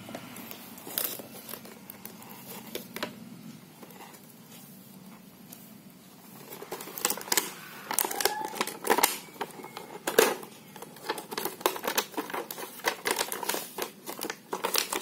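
A cardboard toy box being handled and opened, its clear plastic packaging crinkling: a few light taps and rustles at first, then a busy run of crinkling, crackling clicks from about halfway through.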